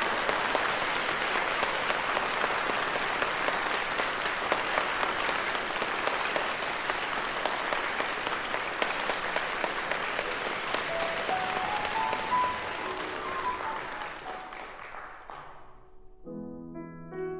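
Audience applauding, the clapping thinning out and dying away over the last few seconds. A grand piano starts playing softly under the fading applause, and clear piano chords begin near the end.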